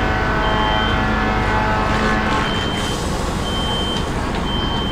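Fire engine running, with a steady engine and pump rumble and a high electronic beep repeating about once a second. A whining drone over the rumble fades out about two seconds in.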